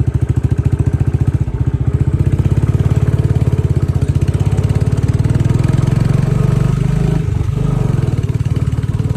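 Royal Enfield Bullet Standard 350's single-cylinder engine running steadily under way, with a fast, even thump of firing pulses; the note dips briefly about seven and a half seconds in.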